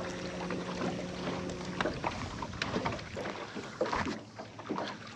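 Electric bow-mounted trolling motor humming steadily, cutting off just under two seconds in. After that, a few light clicks and knocks.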